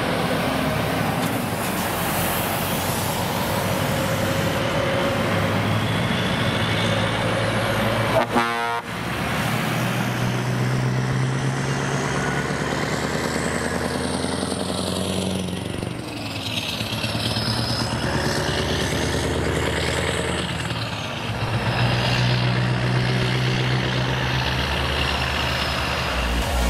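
Heavy Scania trucks driving past one after another, their diesel engines running loud and steady, one of them a V8 with open pipes. Truck horns sound several times.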